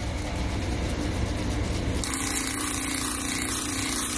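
Water-fed expanding-drum sander running steadily; about two seconds in, a harsher hiss joins as the stone is pressed against the wet 100-grit belt.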